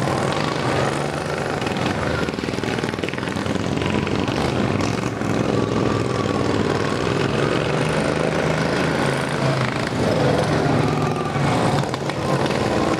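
Several racing lawn tractors' small engines running hard around a dirt track, the engine pitch rising and falling as the mowers pass, slow for the turns and speed up again.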